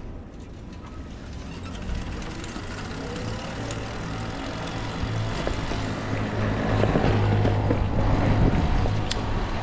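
Street traffic: a motor vehicle's engine hum that grows louder as it draws close and is loudest near the end, over road noise.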